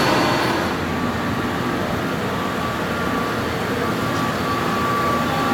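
Steady mechanical rumble and hiss of construction-site machinery, with a faint steady high whine that comes in about a second in.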